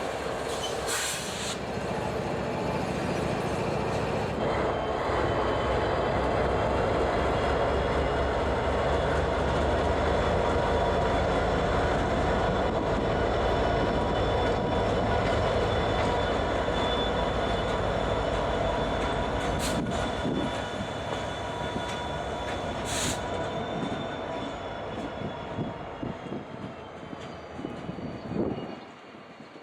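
Freight train with single-stack container cars rolling slowly past, its wheels rumbling on the rails with a thin steady squeal over it. There are a couple of sharp clanks, and the sound fades and then cuts off just before the end.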